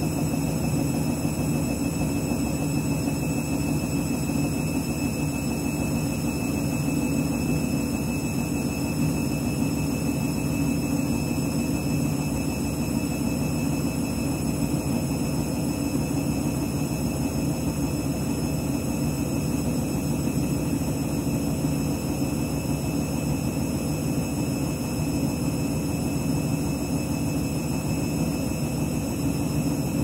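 Front-loading washing machine's motor and drum running with a steady whir that holds one pitch while the drum turns through thick foam. Too much detergent has left the drum full of suds, and suds lock is holding the spin back so it never speeds up.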